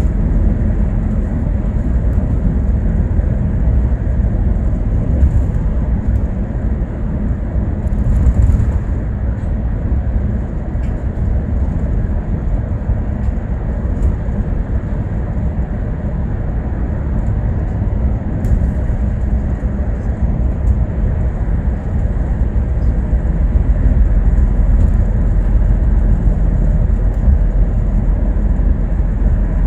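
Bus in motion heard from inside: a steady low rumble of engine and road noise, with a few faint clicks and rattles now and then.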